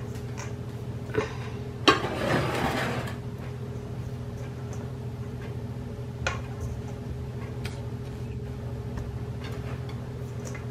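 Spatula scraping and tapping against a stainless steel mixing bowl, with a sharp clink about two seconds in and a few lighter clinks later, over a steady low hum.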